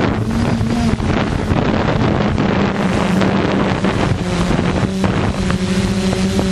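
ZionEX460 multicopter's motors and propellers humming steadily, with strong wind buffeting the microphone.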